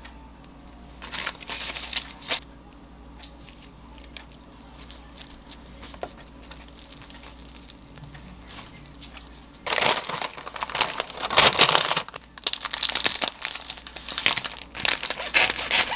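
Brown parchment paper crinkling and rustling as it is folded and pressed tightly around a tall sandwich. It starts loud about ten seconds in and goes on in dense bursts; before that there are only a few soft rustles.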